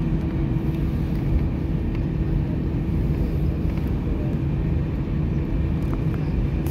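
Airbus A320 jet engines at takeoff thrust early in the takeoff roll, heard from inside the passenger cabin: a steady low rumble with a constant hum.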